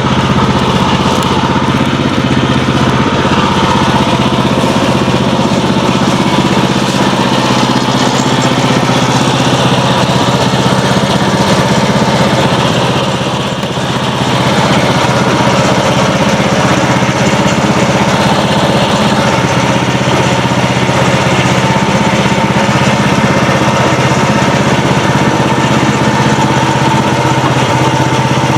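Band sawmill's engine running steadily under power, with a brief dip about halfway through.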